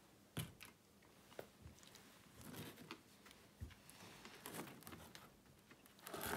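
Quiet handling sounds: faint rustling and a few light knocks as a flexible reinforced hose is picked up and bent on a workbench, with a louder rustle near the end.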